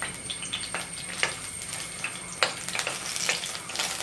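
Slit green chillies frying in hot coconut oil in a pan: a steady sizzle with scattered crackles and pops.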